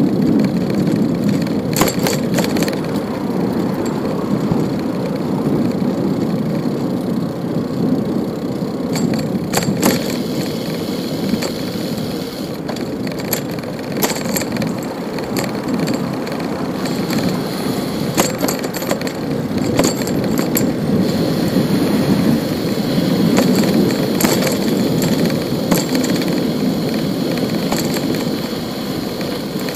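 Bicycle riding along a city street: steady tyre and road rumble, broken by frequent sharp clicks and rattles over bumps.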